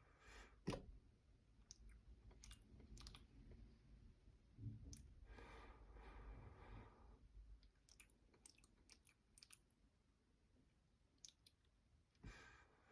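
Fingernails tapping and clicking on small travel-size cosmetic containers close to the microphone: scattered sharp clicks, with a longer, softer sound between about five and seven seconds in.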